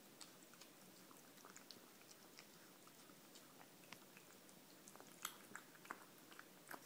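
Flame Point Siamese mix cat eating from a metal bowl: faint, irregular chewing and wet smacking clicks, with a few louder smacks about five seconds in.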